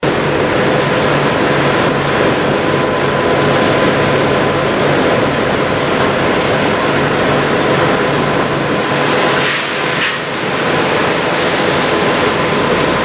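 Steady drone of idling diesel semi trucks, with a faint steady hum over it and a brief rush of noise about nine and a half seconds in.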